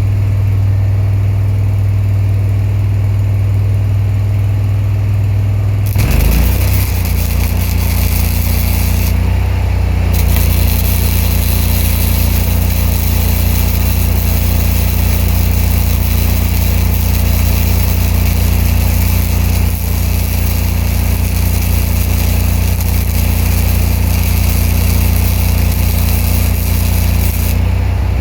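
Engine-driven welder running steadily, with a MIG spool-gun arc striking about six seconds in and crackling, breaking off briefly a few seconds later, then running on until just before the end. The engine's note changes as the arc starts and stops, as it takes the welding load.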